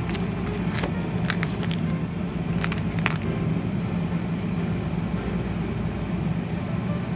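Steady low hum of a supermarket's chilled meat display and store background, with a few sharp clicks in the first three seconds.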